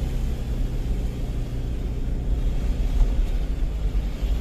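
Steady low rumble of engine and road noise inside a moving car, with a single small knock about three seconds in.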